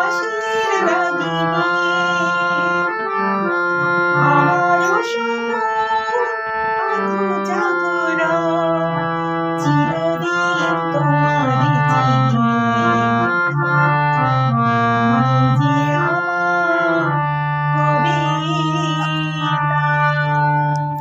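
Instrumental music: a keyboard melody of held, organ-like notes over sustained low notes, stopping suddenly at the end.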